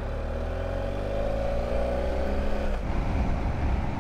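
Motorcycle engine accelerating, its pitch rising steadily, then breaking off at a gear change near three seconds in, over a rush of wind noise.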